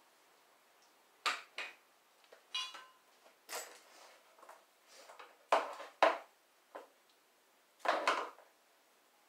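Scattered clunks, clicks and rattles as a small quad's plastic bodywork and metal parts are pulled at and handled during teardown. There are about eight short knocks, the loudest two a little past the middle and another near the end.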